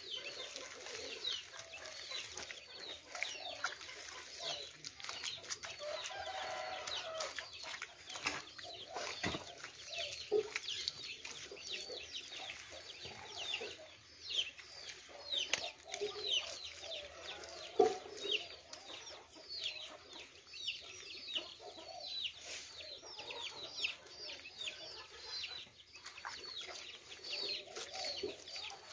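Chickens calling: a steady run of short, high, falling peeps with some lower clucks. A few soft thuds of wet mud being packed and smoothed by hand into an adobe mould.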